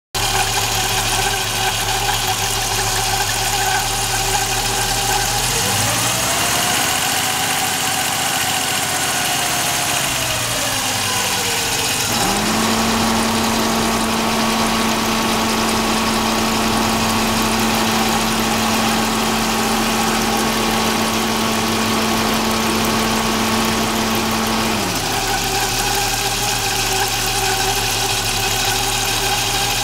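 Audi Coupe 2.3 five-cylinder engine idling. About five seconds in the revs rise, then hold at a steady higher speed until about twenty-five seconds in, when they drop back to idle. The owner reports an odd squeal that appears only when the engine is below 1000 rpm and that began after the ignition timing was set.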